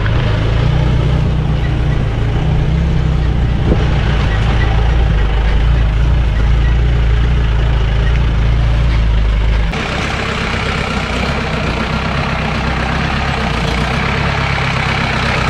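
Vehicle engine running with a heavy low rumble. About ten seconds in the sound changes abruptly to a lighter, hissier engine noise.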